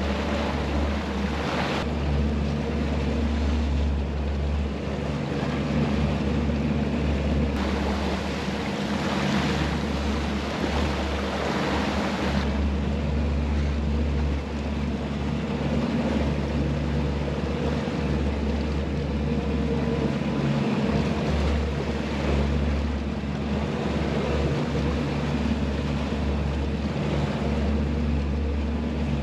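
Twin Mercury Verado 250 V8 outboards running steadily at trolling speed, a constant low engine hum over the rush of wake water and wind.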